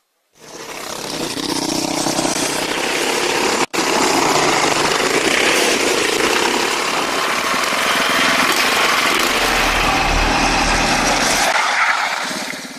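Off-road buggy engine running hard with driving noise, loud and steady. The sound cuts out for an instant about four seconds in, then carries on and fades near the end.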